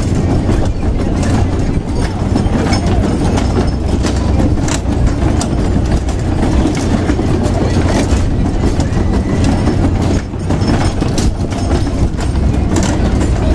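A kiddie carousel of small fire-truck cars turning: a steady low rumble with irregular rattles and clacks from the ride.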